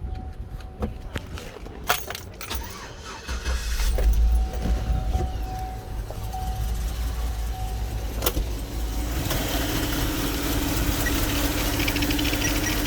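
A few clicks, then the 2008 GMC Yukon's 5.3-litre V8 is started and catches about three seconds in, running on with a steady low rumble. A steady hum joins near the end. The engine is misfiring on a faulty injector circuit, where a piece of wire had been put in place of the 20 A injector fuse.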